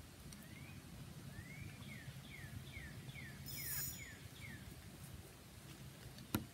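A songbird singing a run of about nine short whistled notes, roughly three a second, the first rising and the rest falling in pitch, with a brief high buzz in the middle. A single sharp click near the end is the loudest sound.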